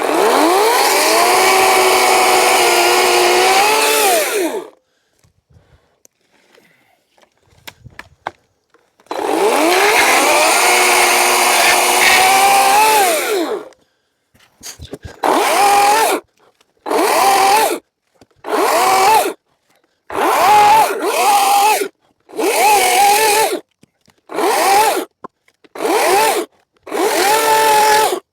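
EGO CS1801 18-inch battery chainsaw with a full-chisel chain cutting branches: two long runs of about four seconds, its whine rising as it spins up, then a string of about nine short bursts of about a second each, with quiet between.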